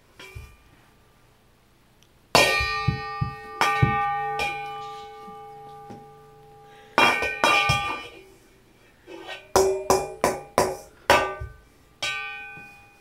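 A stainless steel mixing bowl being struck with a kitchen utensil. The strikes come in uneven bunches starting about two seconds in, and each leaves the bowl ringing with a clear metallic tone that fades slowly.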